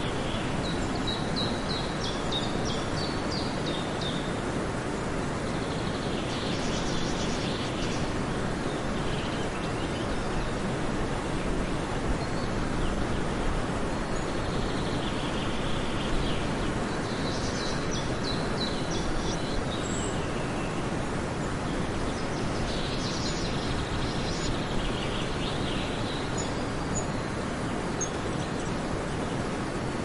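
Birds chirping in several separate bouts of quick high notes over a steady rushing background noise.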